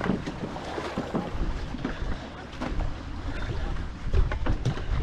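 Paddles of a two-person racing canoe pulling through the water with irregular splashing, over wind rumble on the microphone.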